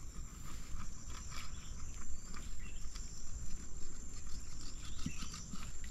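Steady high-pitched insect drone, with scattered faint clicks and rustles.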